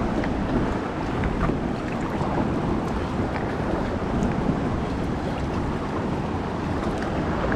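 Wind rumbling on the microphone over waves and water washing around a kayak, with scattered light splashes.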